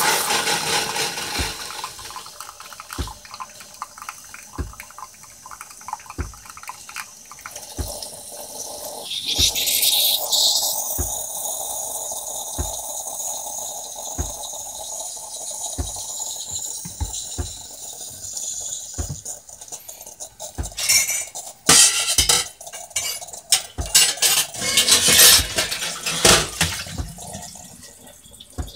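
Bosch Tassimo pod coffee machine brewing: coffee pours into a ceramic cup over a regular soft knocking from the pump, with a hiss of steam from about a third of the way in. Loud sputtering and spitting bursts come in the second half as the brew cycle ends and the machine purges.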